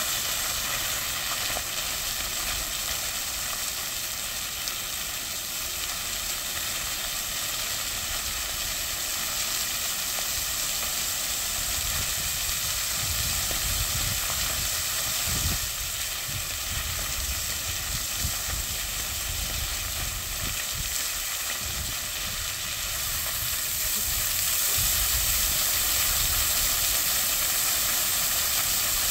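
Water jets of a dry-deck fountain rising and falling back onto stone paving: a steady, even hiss of splashing spray, a little louder over the last few seconds.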